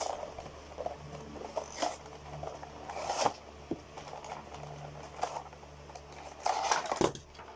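A toy box's cardboard and plastic packaging being handled and opened: irregular rustling, scraping and tearing with a few sharp crackles, the loudest about three seconds in and again near the end.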